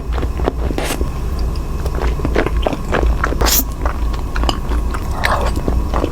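Close-miked chewing of cheesy tteokbokki, chewy rice cakes: wet mouth smacks and clicks coming in quick, irregular succession over a steady low hum.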